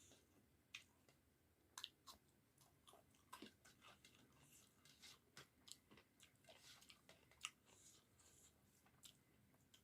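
Faint, close-up chewing and eating sounds: a person chewing a mouthful of rice and curry, with irregular soft mouth smacks and clicks.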